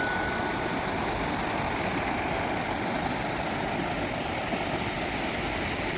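Steady rushing of a clear, shallow stream flowing.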